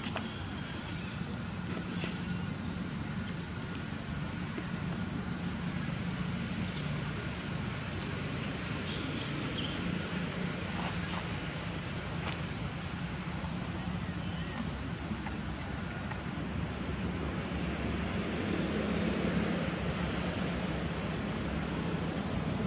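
A steady, high-pitched insect drone that does not let up, with a low, even rumble underneath.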